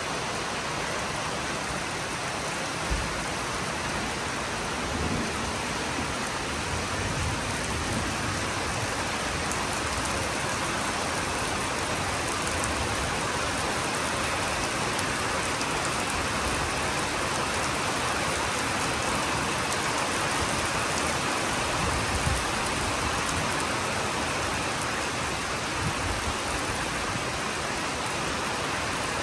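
Steady rain falling on leaves and ground, with a few brief low thumps.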